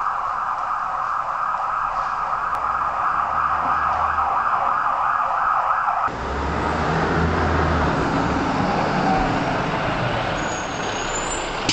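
Emergency-vehicle siren wailing steadily after winding up, then cut off abruptly about six seconds in. A large vehicle's engine rumbles on under broad noise.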